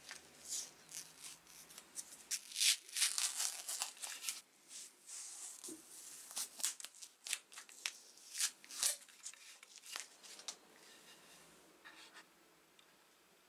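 Plastic protective film and tape crinkling and rustling as they are peeled by hand off a polished metal hammer head, in a run of short scratchy strokes, with one light knock about nine seconds in; it dies down to faint room hiss after about ten seconds.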